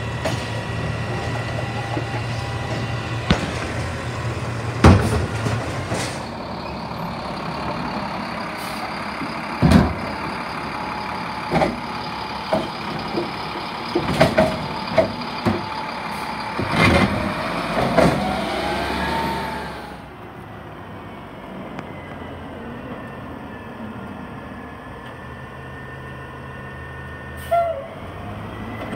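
Automated side-loader garbage truck running while its hydraulic arm lifts and tips a wheeled cart into the hopper, with a string of sharp knocks and bangs as the cart is shaken out. About two-thirds of the way through the sound drops to a quieter steady truck idle.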